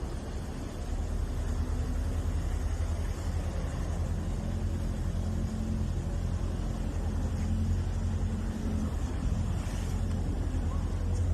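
A motor vehicle's engine running steadily, a low rumble with a faint hum.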